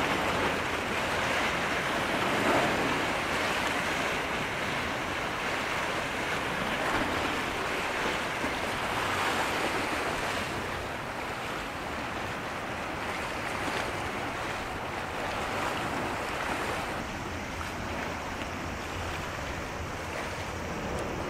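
Steady rushing of wind and water, with wind buffeting the microphone.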